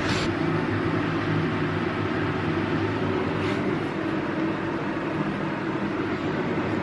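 Steady mechanical hum, like a running fan or motor, with a low droning tone under even hiss.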